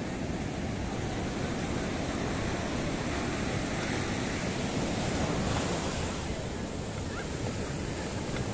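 Strong ocean surf breaking on a sandy beach, a steady wash of waves that swells to a peak about five seconds in.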